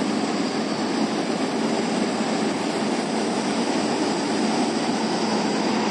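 Steady, even rushing noise with no distinct events, outdoors at a thermal power station.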